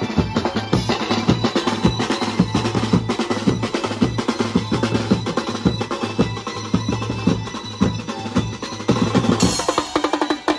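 A Maharashtrian banjo band's percussion section playing a fast, dense rhythm: roto drums, bass drums struck with mallets, and a drum set with cymbals, with rapid rolls.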